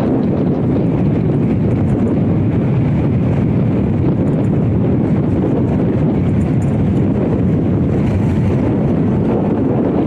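Strong wind buffeting the camera microphone: a loud, steady low rumble without any clear pitch.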